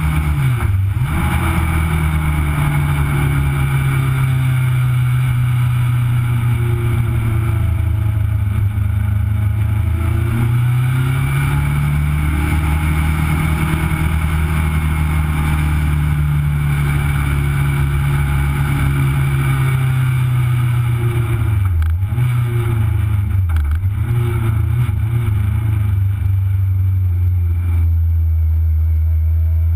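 Legend car's Yamaha four-cylinder motorcycle engine heard from onboard at racing speed. The revs rise and fall through the gears, dip sharply twice a little over two-thirds in, then settle to a steadier, lower note as the car slows toward the pit lane.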